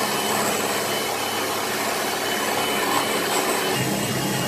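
Electric hand mixer running steadily on speed 5, its beaters whisking egg whites and sugar syrup into Italian meringue on the way to stiff peaks.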